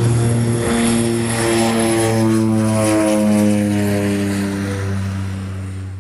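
Twin-engine propeller plane flying low past: a loud, steady propeller drone over engine hiss, its pitch easing slightly lower as it goes, fading out near the end.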